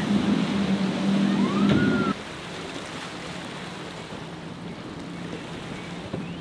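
Big outboard motors on fast sport-fishing boats, a triple Mercury 300 rig and then a quad Mercury 450R rig, running at speed through choppy water: a steady engine drone over the hiss of spray and wind. A short rising whistle-like tone comes in just before the sound drops abruptly about two seconds in to a quieter drone and rush of water.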